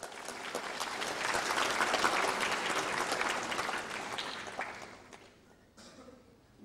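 Audience applauding, many hands clapping together, swelling over the first second and dying away about five seconds in, followed by a single soft knock.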